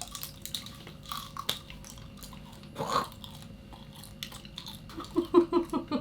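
People biting into and chewing a thin, papery snack, with scattered small crunches. Giggling starts near the end.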